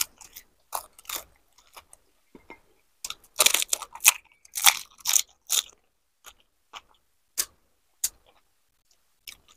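Crisp pani puri shells crunching as they are bitten and chewed. The crunches come thickest from about three to six seconds in, with scattered single crackles before and after.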